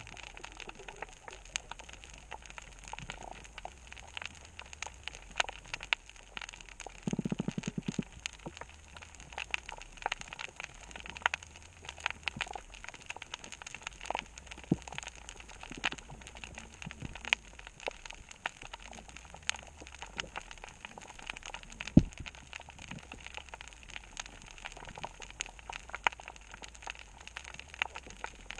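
Underwater reef crackle from snapping shrimp: a dense, steady scatter of sharp clicks and pops. A short low buzz lasts about a second around a quarter of the way in, and a single louder click comes about three-quarters of the way through.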